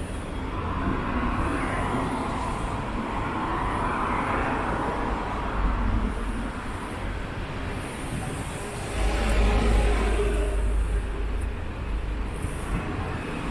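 Road traffic driving past on a city street, a steady wash of tyre and engine noise that swells and fades as vehicles go by. About two-thirds of the way through, one pass is louder with a deep rumble.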